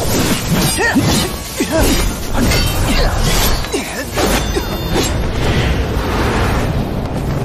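Animated battle sound effects, a run of whooshes and impacts with sweeping energy sounds, over dramatic background score music.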